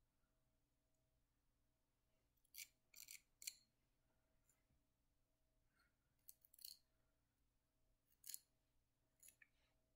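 Nail file scraping at the edge of a fingernail in short, faint strokes, filing off the overhanging excess of a nail polish strip: three quick scratches a few seconds in, then a few more spaced out near the end.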